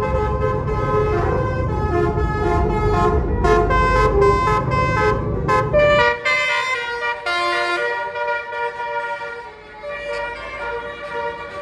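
Bus 'basuri' telolet multi-tone horn playing a quick stepping melody of held notes over the low rumble of the bus, which stops abruptly about six seconds in while the horn tune goes on.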